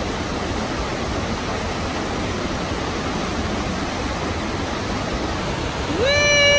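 Steady rushing of Tamanawas Falls, a tall plunging waterfall, heard as an even wash of noise. Near the end a single long, held high-pitched call rises over it.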